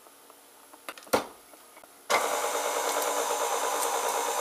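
A knock about a second in, then an electric mixer switches on about two seconds in and runs steadily on low speed, mixing cookie dough as flour is added.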